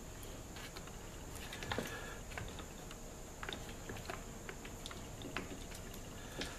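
Scattered light clicks, taps and scrapes of hands fitting a carburetor onto a chainsaw's black plastic housing and rubber intake manifold, over a faint steady high hum.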